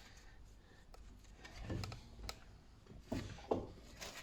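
Light clicks and taps of metal brake parts being handled while fitting brake pads and clips to the caliper, several separate clicks spread through a few seconds.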